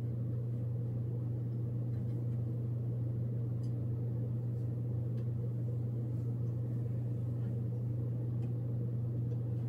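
Steady low hum of a running appliance motor, unchanging throughout, with a few faint clicks.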